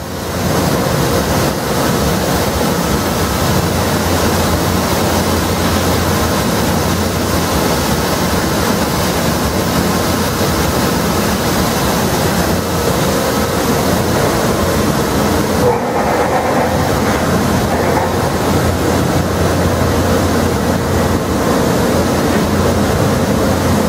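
Takumi V22A vertical machining center running: a steady mechanical noise with a faint steady whine and a low hum throughout.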